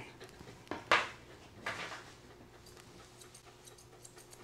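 Light, quick snips of grooming shears trimming a dog's coat, starting a little past halfway. Before them, about a second in, come a short loud noisy burst and a softer one.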